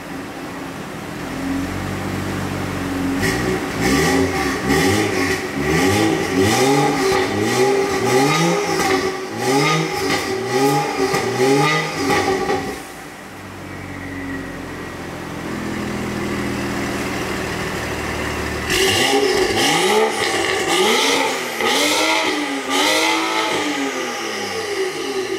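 BMW M235i's turbocharged straight-six revved hard through its exhaust in quick blips about once a second, with crackling on each rev. It settles to idle for about six seconds midway, then is blipped again.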